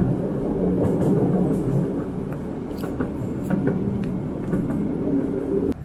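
Steady low rumble of a train running, with scattered light clicks, dropping away abruptly near the end.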